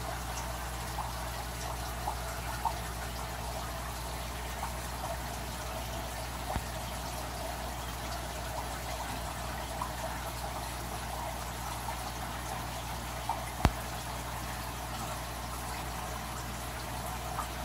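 Aquarium water circulating: steady trickling and bubbling over a low, even hum. There are a few faint clicks and one sharp click about three-quarters of the way through.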